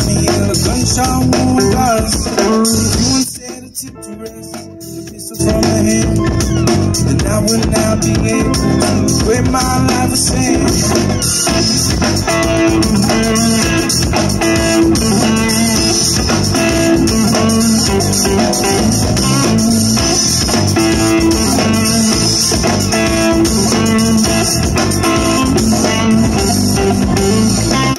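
Live band with electric guitar, bass, drum kit and keyboard playing through a PA. The band drops out suddenly about three seconds in, leaving only a faint lingering note for about two seconds, then the full band comes back in and plays on steadily.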